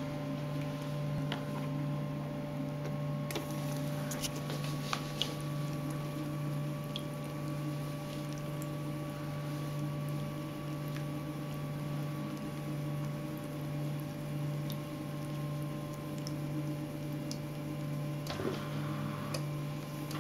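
Steady low electrical hum from the model volcano's water fogger and pump, with a fainter steady higher tone above it, faint liquid squishing and scattered small clicks. About eighteen seconds in, a fizzing hiss starts as vinegar pumped onto the bicarb and soap mix begins to foam.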